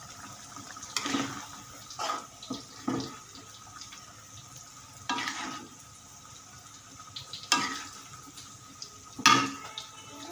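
Kitchen sounds of water and dishes, in about six short noisy bursts over a steady hum.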